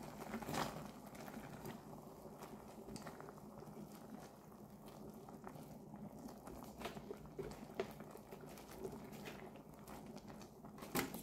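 Kitchen tongs tossing instant noodles in a thick spicy sauce in a stainless pot: soft wet stirring and squelching, with a few light clicks of the tongs against the pot.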